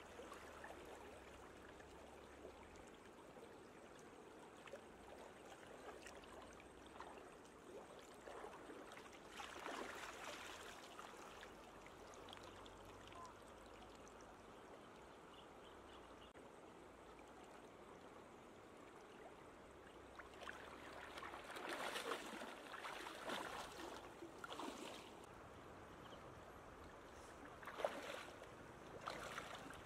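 Faint water sounds of someone wading through shallow floodwater: a steady trickling hiss with swells of sloshing and splashing, and one sharper splash near the end.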